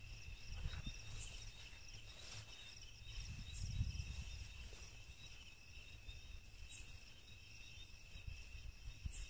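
Crickets trilling steadily in a high, even chorus, with a low rumble of movement near the microphone that swells about four seconds in.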